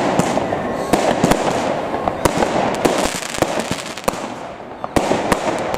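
Fireworks display: aerial shells bursting with irregular sharp bangs over a continuous dense crackle, the loudest bang about five seconds in.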